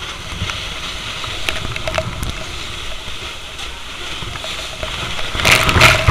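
Steady hiss of fire-hose water spraying into a fire amid steam, under a low rumble and rubbing on a body-worn camera. A louder rush of noise comes about five and a half seconds in.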